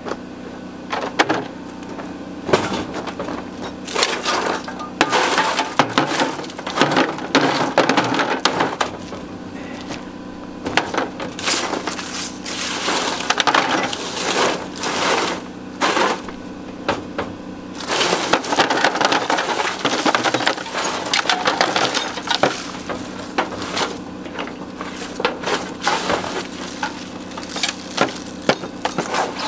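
Loose rocks and debris being scooped and stirred by hand in the bottom of a metal dishwasher tub: an irregular clatter of stones clinking and scraping against each other and the metal, with brief pauses.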